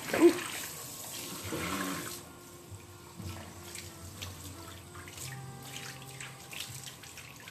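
Water spraying from a handheld sink sprayer onto hair, an even hiss of running water. A brief voice sound just after the start is the loudest moment.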